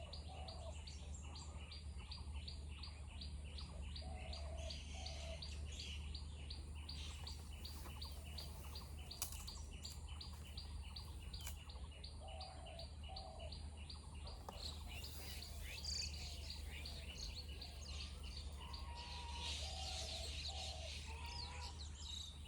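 Forest birds calling: a fast, even series of high ticking notes, about four a second, fading out around the middle, with a low two-note call repeating every few seconds. A steady low hum runs underneath.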